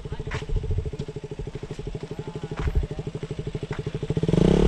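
Motorcycle engine running at low revs with an even, steady pulse, a few faint clicks over it, getting louder about four seconds in.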